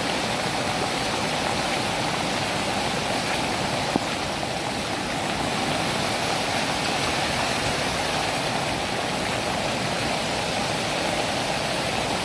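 Landslide runoff rushing along a road as a steady torrent of water, with a single short knock about four seconds in.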